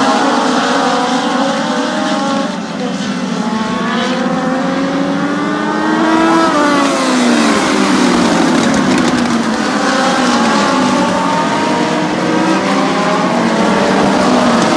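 Several Legends race cars lapping a short oval, their motorcycle engines rising and falling in pitch as they accelerate and lift through the turns. One car passes close about six seconds in.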